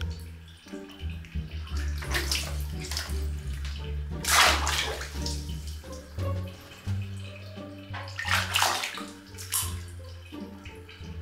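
Water splashing in a plastic basin as a baby monkey climbs in and moves about, in three surges, the biggest about four seconds in. Background music with a steady bass plays under it.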